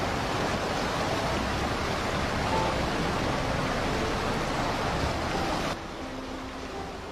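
Fast river rushing over rapids, a steady hiss of running water; it drops suddenly to a quieter wash of water near the end.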